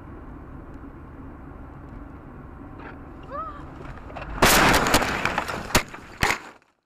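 Road and engine noise inside a moving car, then about four seconds in a loud crash as the car collides and leaves the road, followed by several sharp bangs of impacts. The sound cuts off suddenly near the end.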